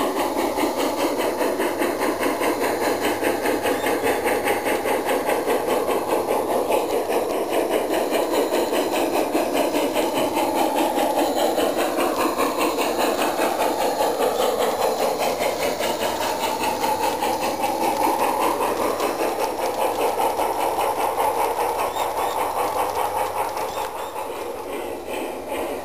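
Garden-scale model steam locomotive running with its train: a steady, fast, even chuffing beat with hiss, which eases a little near the end.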